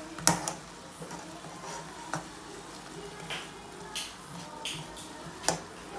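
Shrimp sizzling in soy sauce in a frying pan while a slotted spatula stirs them, knocking and scraping against the pan several times, the loudest knock just after the start.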